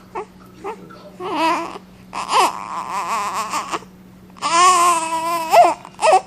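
A baby vocalizing in long, high-pitched drawn-out calls, three of them, the last and longest held at a fairly steady pitch about halfway through.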